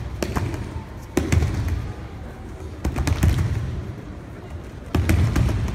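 Judoka being thrown onto tatami mats: several heavy thuds and slaps as bodies land in breakfalls, the loudest a little over a second in, around three seconds in and about five seconds in.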